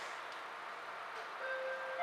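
Steady hiss inside a stopped Metra commuter train, then about one and a half seconds in an electronic chime tone starts and holds steady: the door-closing warning before the train leaves the station.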